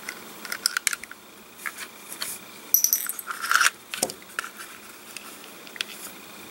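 Plastic holster parts and small screws being handled during disassembly: scattered clicks and taps, with a cluster of metallic clinks and a brief ringing about three seconds in.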